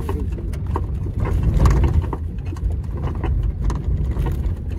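Inside a vehicle on the move: a steady low rumble of engine and road noise, with frequent short knocks and rattles over it.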